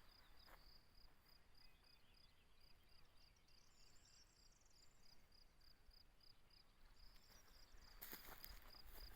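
Faint countryside ambience: a cricket chirping in an even rhythm, about three high chirps a second, with brief faint bird chirps about four seconds in. A burst of rustling comes near the end.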